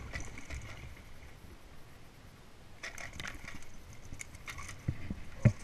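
Scattered clicks and rattles of fishing tackle being handled in a small boat: a spinning reel and line worked by hand. A few dull knocks near the end, the loudest just before it stops.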